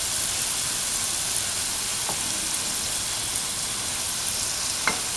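Mung bean-filled dough balls frying in hot oil in a pan: a steady sizzle with small crackles.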